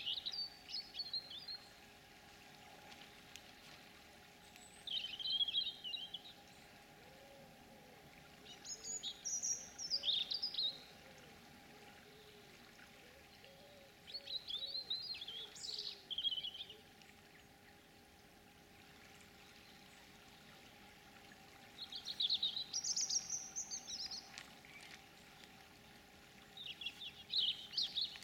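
A songbird singing short, high, quickly varying phrases of one to three seconds, six in all at intervals of a few seconds. Under the song runs the steady rush of a fast-flowing river.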